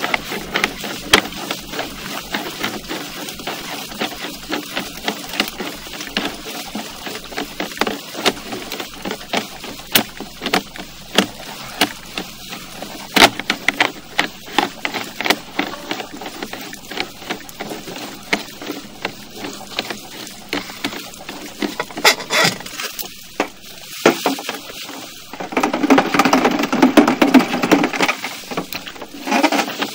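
Sewer inspection camera's push cable being pulled back out of the line through the cleanout: a steady stream of irregular clicks and knocks. Near the end a louder, rougher scraping lasts about three seconds.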